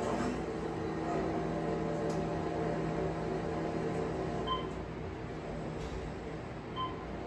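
Elevator car descending, heard through a television's speakers: a steady hum of the running car, with a short beep about four seconds in and another near the end as it passes floors.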